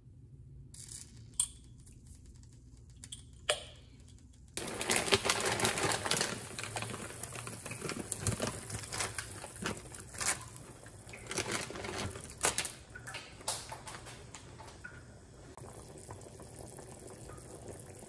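A saucepan of water at a rolling boil, bubbling and popping, as dry fusilli is dropped in and clicks and splashes in the water. The sound starts suddenly about four and a half seconds in, after a quiet start with a couple of light clicks, and eases to a steadier bubbling near the end.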